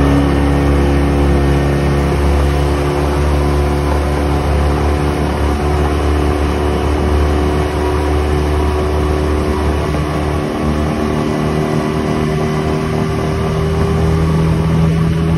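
Yamaha 20 hp four-stroke outboard motor running at speed under load, a steady engine note that creeps up slightly near the end, over the rush of water from the hull.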